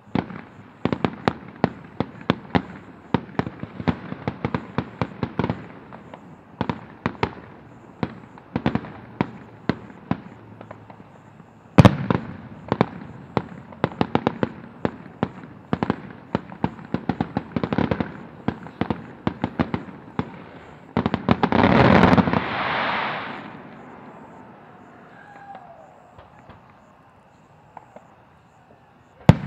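Fireworks: long runs of rapid sharp crackling pops from low crackling effects, with a single loud bang about twelve seconds in. About two-thirds of the way through comes a dense two-second rush of crackle that tails off into quiet. A loud aerial shell burst comes right at the end.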